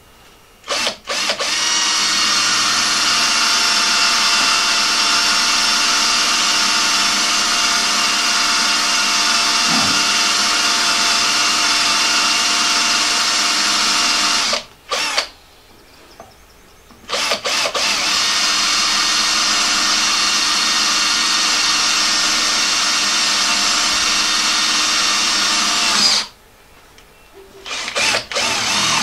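Cordless drill boring into a steel bracket on a lathe stand, its motor running with a steady whine in two long runs of about thirteen and nine seconds. A few short trigger blips come at the start, between the runs and near the end.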